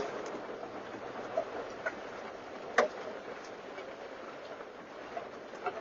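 Scattered hailstones striking the truck, sharp knocks every second or so, the loudest nearly three seconds in, over a steady hiss of rain and driving noise. The hail is thinning out.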